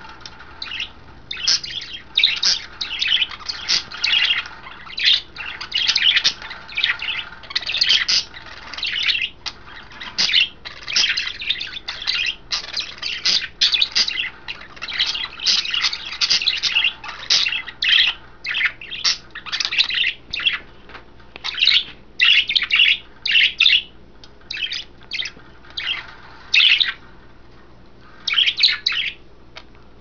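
Pet budgerigars chirping and chattering in quick strings of short, high chirps, thinning out near the end.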